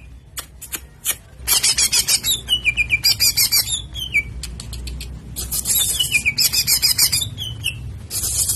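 A songbird singing: phrases of rapid, high trills that each run down into a falling series of notes, repeated with short pauses between them.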